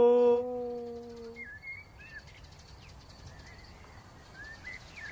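A man imitating a wolf howl through cupped hands to call young wolves. It is one held, steady note that breaks off about a second in. Faint birds then chirp in the quiet that follows.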